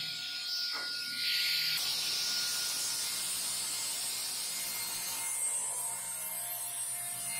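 Delta Unisaw cabinet table saw ripping through a thick board: a steady cutting hiss from the blade over the even hum of the running motor.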